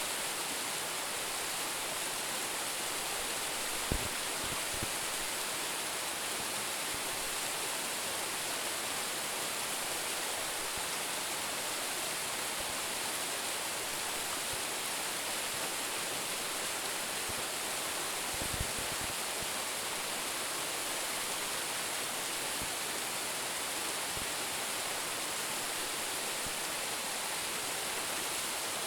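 A waterfall of about ten metres' drop, its water falling steadily in an even, hissing rush. Two brief low thumps sound, about four seconds in and again past the middle.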